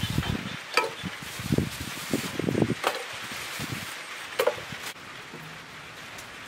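Irregular dull knocks and a few sharp clicks as small things are handled over a metal bucket and a plastic bag, dying away after about four seconds.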